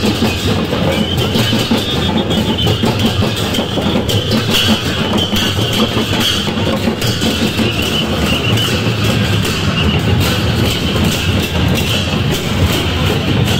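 Drum-led music playing steadily, with dense percussion strikes and no breaks.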